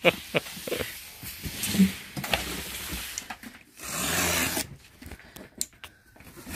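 Scattered knocks and rustles of cardboard being handled, then a utility knife slitting the packing tape along a cardboard box's seam: a rasping cut lasting about a second, starting about four seconds in.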